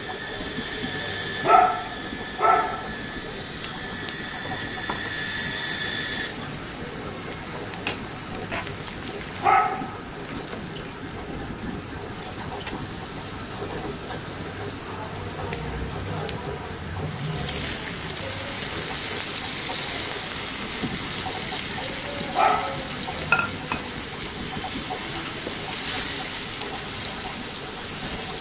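Sliced onions frying in oil in a pan, a steady sizzle broken by a few knocks of the spatula against the pan. A little past halfway the sizzle turns louder and brighter as the blended spice paste goes into the hot oil.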